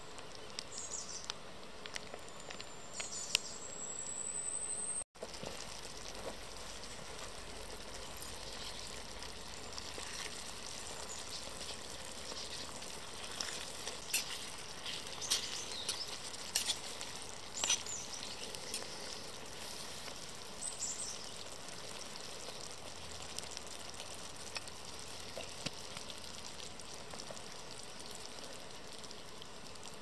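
Food sizzling and crackling in a small frying pan, a steady hiss with scattered pops.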